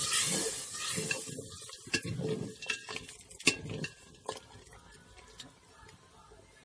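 Metal ladle stirring inside a brass cooking pot, knocking against its sides several times. A sizzling hiss from the hot pot fades out in the first second or so.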